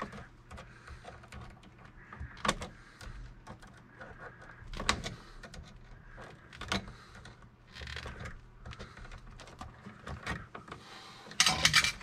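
Linesman's pliers twisting the stripped ends of white neutral wires together: scattered clicks and wire rustling, with a few louder clicks and a quick run of loud, sharp clicks near the end.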